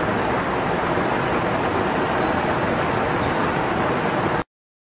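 Steady rushing of wind on the microphone, with a few faint high chirps partway through; it cuts off suddenly near the end.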